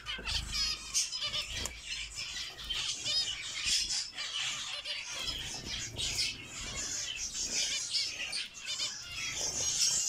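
A flock of aviary finches and their chicks chirping, many short high-pitched calls overlapping and repeating without a break.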